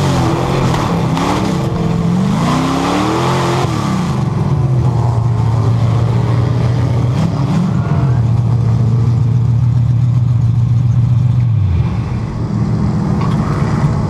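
Purestock dirt-track race car's engine heard from inside the cockpit, its revs rising and falling for the first few seconds, then held steady and dropping near the end, with the left rear axle broken.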